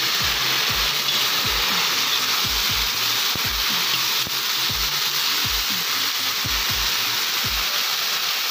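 Mushrooms sizzling loudly in hot rendered pork fat in a kazan while being stirred with a metal skimmer. Background music with a steady low beat plays underneath.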